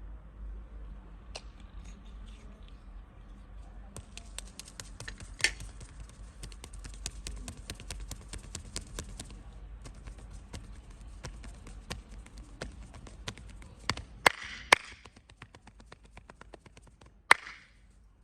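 Hands at work in a head and back massage: a run of quick light taps and clicks, then a few sharp, loud strikes in the last few seconds.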